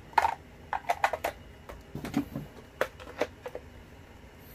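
Scattered light clicks and knocks, about a dozen over a few seconds, of the plastic parts of a Milwaukee M12 DE dust extractor and its HEPA filter being handled.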